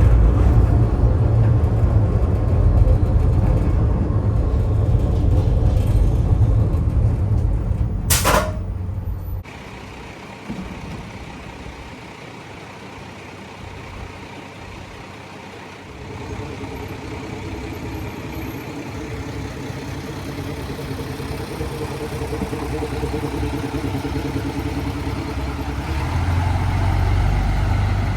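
Low, loud rumble of a motor vehicle running, ending abruptly with a sharp click about eight seconds in; after it a quieter steady vehicle hum builds gradually toward the end.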